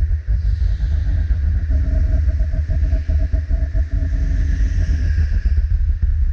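Two-seater go-kart's 270 cc engine running under way, heard onboard with a heavy low rumble, its engine note holding fairly steady through the middle.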